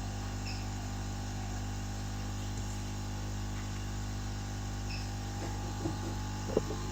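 A steady background hum with two faint short high beeps, one about half a second in and one about five seconds in, and a few light taps near the end.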